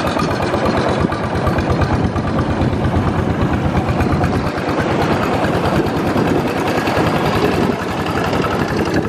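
Engine of a motorised wooden longboat running steadily under way, a loud, even, rapid firing beat.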